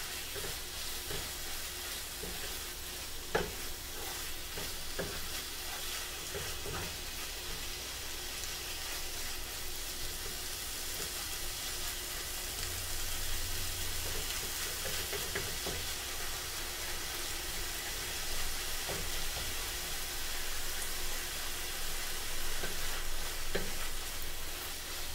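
Chopped chicken and tomato sizzling steadily in a nonstick frying pan as a wooden spatula stirs and scrapes through it, with now and then a sharper knock of the spatula against the pan.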